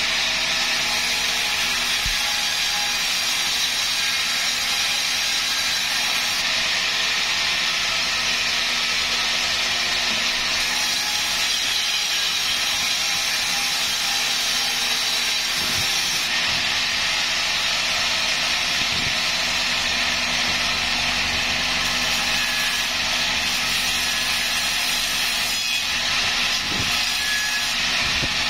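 Sawmill saw running with a steady hiss.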